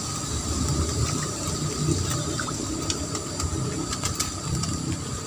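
Steady hissing outdoor background with a faint constant high whine and a few faint clicks.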